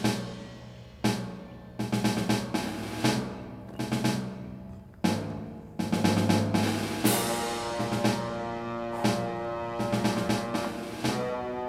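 Instrumental music, drum-heavy, with loud crashing drum hits; held pitched notes come in over the beat about two thirds of the way through.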